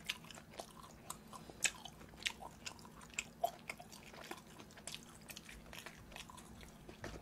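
Close-miked chewing of boneless Andong braised chicken (jjimdak), with irregular sharp wet mouth clicks and smacks.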